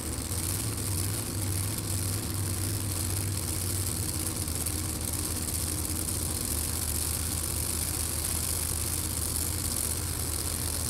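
Supercharged drag-racing car engines idling steadily before a run, a low even drone with no revving.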